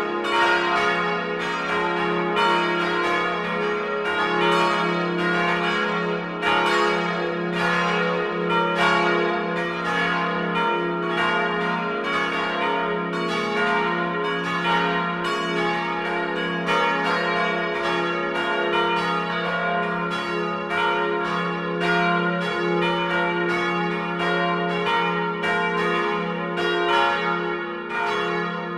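The Lutherkirche's church bells ringing together, several bells striking in overlapping succession several times a second over a steady low hum.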